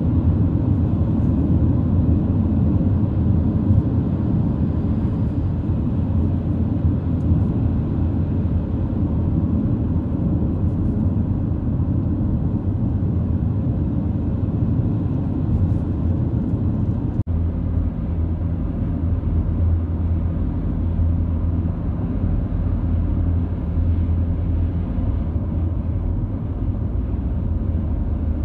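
Steady low rumble of a car driving, tyre and engine noise heard from inside the cabin, with a momentary break partway through.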